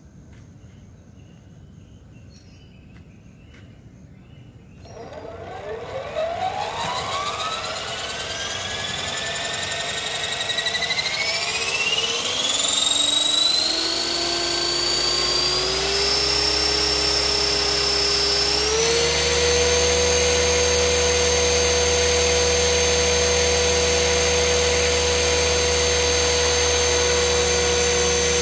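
Align T-Rex 500 electric RC helicopter spooling up on the ground. About five seconds in, the motor and rotor whine starts and climbs in pitch in several steps over some fourteen seconds, then holds a steady, loud pitch.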